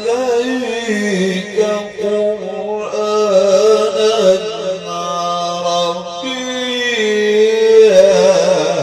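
A man reciting the Quran in the melodic mujawwad style, drawing out one long phrase in a single breath with ornamented, wavering held notes that slide from pitch to pitch. The voice swells to its loudest near the end.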